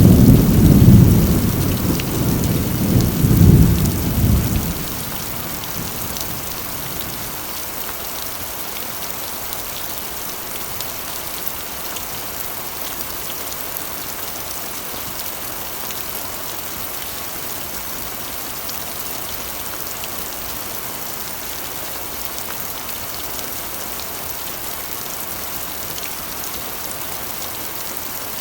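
Steady rain drumming on a corrugated iron roof, with a low rumble of thunder at the start that dies away about five seconds in.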